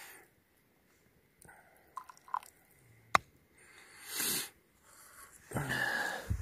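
A person sipping hot coffee from a cup: a few faint clicks and one sharp click, then a slurping sip about four seconds in and a breathy exhale near the end.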